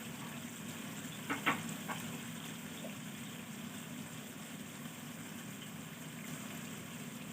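Cubed chicken breast and onion frying in a pan, a steady sizzle, with a couple of brief stirring sounds about a second and a half in.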